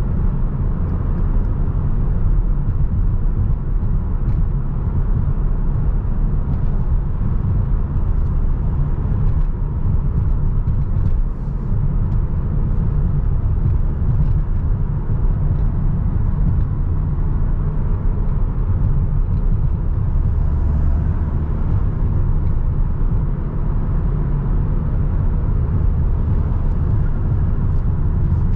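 Audi S3 8V's turbocharged 2.0-litre four-cylinder engine running steadily at cruise, mixed with tyre and road noise. The car is Stage 2 tuned, with an aftermarket intake, turbo inlet and downpipe.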